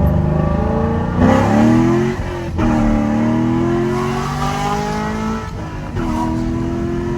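Car engine accelerating hard, its pitch climbing, with sharp breaks about one, two and a half and six seconds in, like upshifts through the gears.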